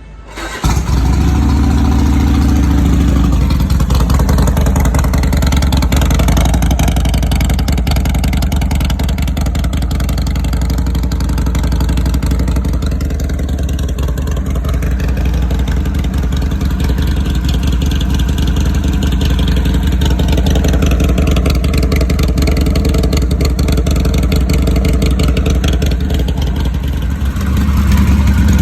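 Harley-Davidson Sportster 1200's V-twin running loud through a Thunder Header 2-into-1 exhaust, coming in suddenly about half a second in. Its note rises and falls through the middle and settles into a steadier, deeper beat near the end.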